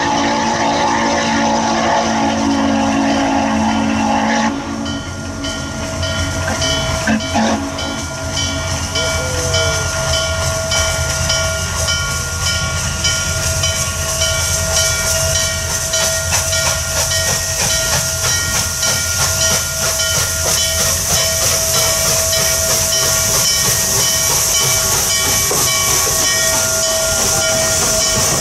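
Norfolk and Western 611 J-class steam locomotive blowing its whistle, a held chord, for about the first four seconds. It then comes on with a hard, rapid exhaust beat and steam hiss, passing close by near the end.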